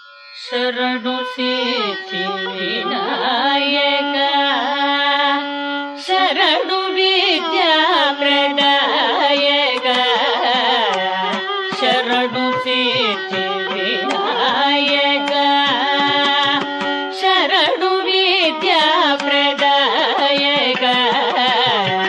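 Carnatic-style Kannada devotional music starting about half a second in: a melody that bends and glides over long-held low notes, with no sung words.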